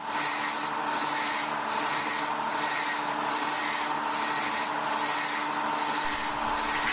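Doall C-305 automatic horizontal bandsaw running, its blade sawing through a steel I-beam: a steady mechanical hum with a few constant tones and a hiss that swells and fades gently in a regular rhythm.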